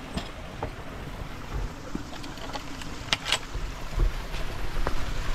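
Footsteps and a few sharp knocks as a hiker with a backpack steps through a wooden fence gap onto muddy ground. The two loudest knocks come about three seconds in, over a steady rumble of wind on the microphone.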